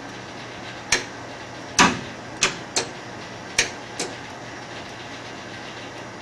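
A run of six sharp clicks and clunks, irregularly spaced over about three seconds, the second one loudest, over a faint steady hum.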